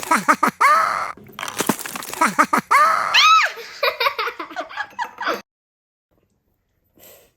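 Children giggling and squealing in quick, rising-and-falling bursts that stop abruptly about five seconds in.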